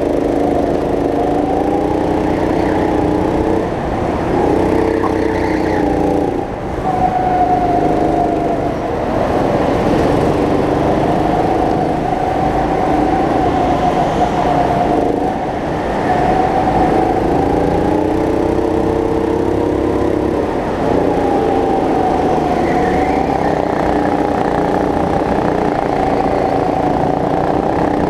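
Go-kart's small engine running hard, its pitch rising and falling again and again as it accelerates out of corners and backs off into them, heard up close from the kart itself.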